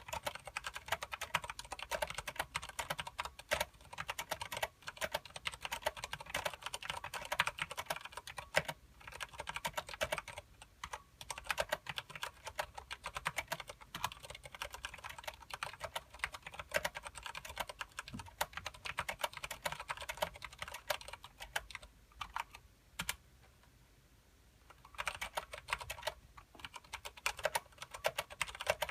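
Continuous typing on a KBParadise v60 mechanical keyboard with tactile Cherry MX Clear switches and thick Ducky PBT keycaps: a quick, irregular run of key clacks that pauses for about two seconds near the end, then resumes.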